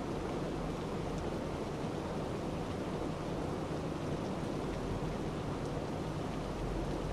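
Steady low rushing noise with no distinct events, and a few faint ticks.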